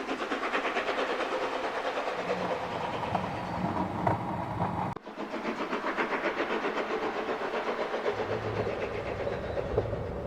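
Steam train running, a fast steady rhythm of chuffs and wheel clatter. The sound cuts off abruptly about five seconds in and picks up again at once.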